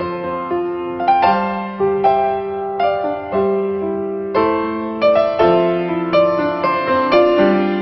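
Background piano music: struck notes and chords that each fade away, in an unbroken melodic passage.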